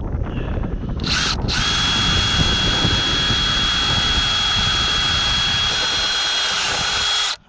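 Cordless DeWalt 18V XR brushless drill running: a short burst about a second in, then one long steady run with a fixed high whine, stopping suddenly near the end.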